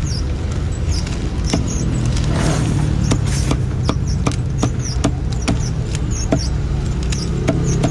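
A cleaver chopping roast duck on a wooden chopping block: sharp, irregular chops about twice a second, over a steady low rumble.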